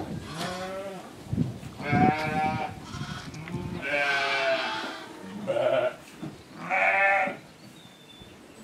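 A flock of sheep bleating: about five wavering bleats, one after another, some overlapping.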